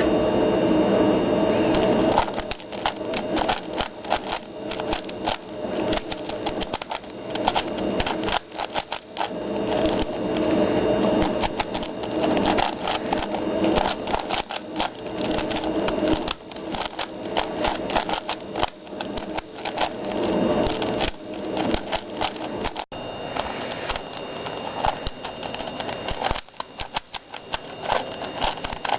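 Plastic 4x4 Rubik's cube being twisted by hand: a dense, irregular run of clicks and clacks as its layers are turned in quick succession.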